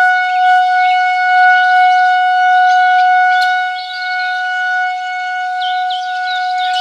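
Synthesized imitation of a Federal Signal 2001-130 outdoor warning siren holding one steady wailing tone, dipping in level about four seconds in, with birds chirping behind it.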